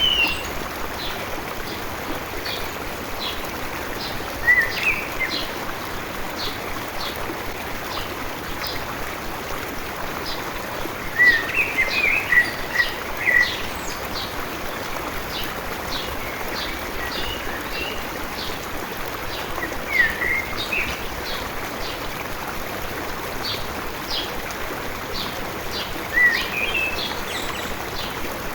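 A small stream runs with a steady rushing sound, while a songbird breaks in with short chirping phrases every few seconds, in its longest run near the middle. Short high ticks repeat all through.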